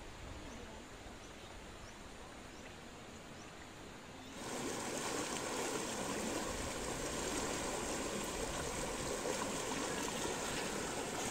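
A fast, shallow river rushing over rocks in white rapids, a steady full rush that starts about four seconds in. Before it there is only a fainter steady hiss.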